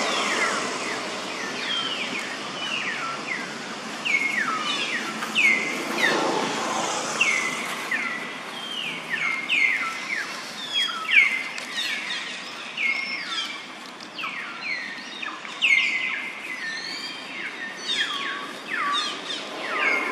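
Birds calling outdoors: many short, sharp chirps that drop quickly in pitch, repeated every second or less throughout, with several overlapping at times.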